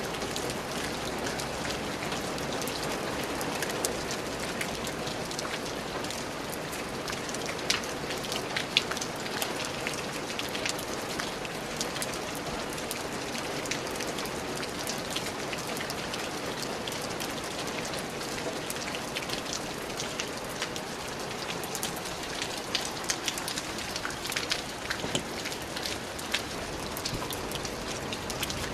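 Steady rain falling on a surface, an even hiss with many separate drops ticking and pattering through it.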